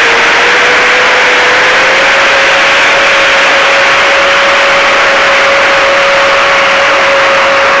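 9-inch FPV quadcopter's brushless motors and propellers running at a steady cruise: a loud, steady whine over a rush of propeller noise, the pitch stepping up slightly about two seconds in.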